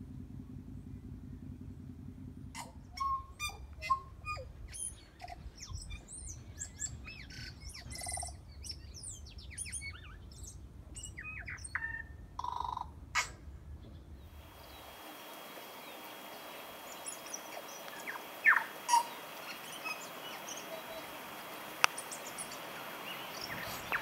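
Tui singing over a low rumble: a dense, varied run of clicks, short whistles and liquid gliding notes. After about fourteen seconds the sound changes to a steady hiss with a high steady tone and only a few scattered calls, one of them a sharp rising whistle.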